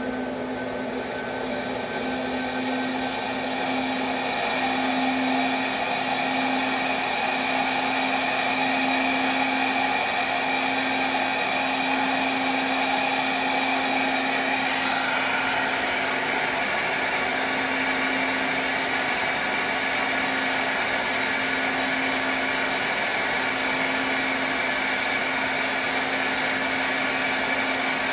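Flow bench motor running steadily, pulling air through the 7.3 IDI diesel cylinder head's intake port at a held test depression of about 28 inches of water, with the valve at 0.100 in lift. It is a loud, even rush of air with a whine. The sound builds over the first few seconds, and one whining tone steps up in pitch about halfway through as the bench hunts to hold the depression.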